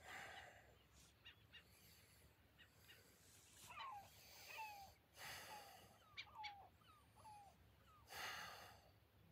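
Faint, slow breathing: soft exhaled sighs a few seconds apart. Between them come a handful of short, falling chirps from birds, most of them in the middle.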